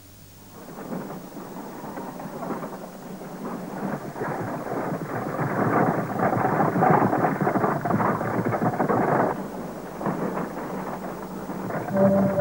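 Horse-drawn wagon rolling along a dirt track, its wooden wheels rattling and crunching in a dense noise that builds up and drops away about nine seconds in. Music comes in near the end.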